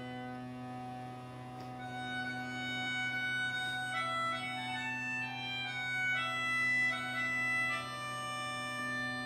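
Live instrumental music: a slow melody of long held notes over a steady low drone, swelling in the middle and easing off near the end.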